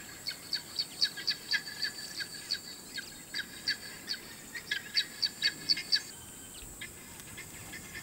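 Vulturine guineafowl calling: a fast, uneven run of short, sharp, high chirps, about three a second, which stop about six seconds in.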